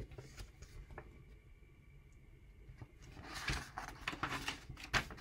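A picture book's paper page being turned: quiet at first, then a rustle with a few sharp flaps from about three seconds in.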